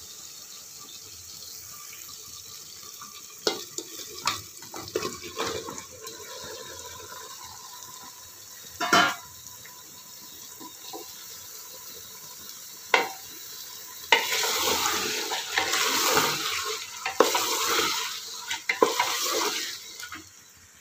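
Raw mutton pieces going into hot oil and ginger-garlic paste in an aluminium pressure cooker: a steady sizzle with a few knocks. About two-thirds of the way in, a wooden spatula starts stirring the meat, a louder rough scraping and sizzling that goes on until near the end.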